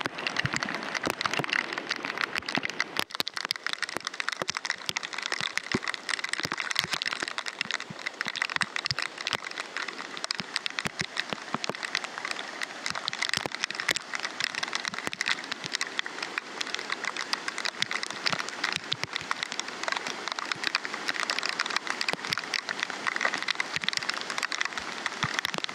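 Torrential rain, a dense stream of sharp drop hits close by, over the steady rush of muddy floodwater surging over a flooded crossing.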